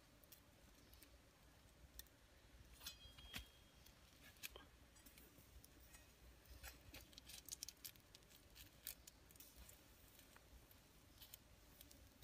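Faint scraping and light clicking of a cleaver blade worked over the charred skin of a whole grilled catfish, in scattered strokes that come thickest a little past the middle.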